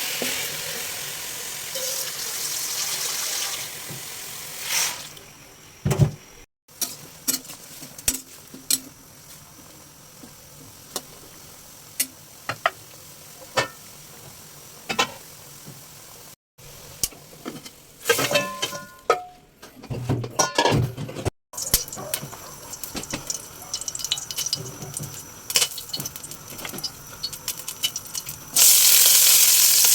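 Kitchen cooking sounds: water running, then scattered clinks and knocks of utensils and cookware, and near the end food starts sizzling loudly in a hot pan.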